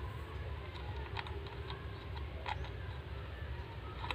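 A few light, separate clicks and taps over a low steady hum, as of mixer jug blade parts being handled and fitted by hand.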